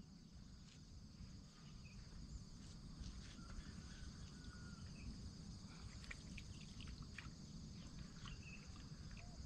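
Faint chorus of insects, a steady high trill, with scattered short chirps, fading in over the first few seconds.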